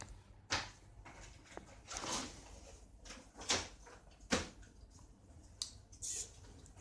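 Irregular sharp clicks and light knocks, about six in all, with short rustles between them.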